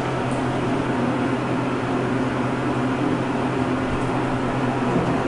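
Steady hum inside a Thyssenkrupp elevator cab: a constant low tone under an even rush of machine and ventilation noise.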